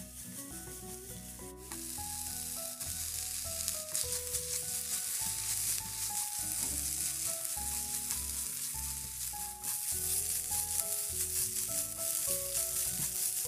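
Chopped green onion and shredded rotisserie chicken sizzling in oil in a nonstick frying pan while being stirred and tossed with a silicone spatula. The sizzle gets louder about two seconds in.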